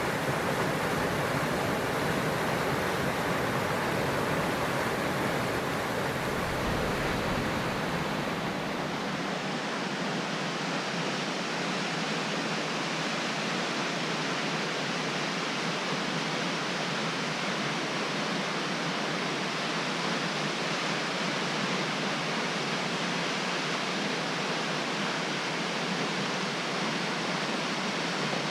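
Waterfall: falling water making a steady rush. About nine seconds in, the deep rumble and the highest hiss drop out and the rushing goes on.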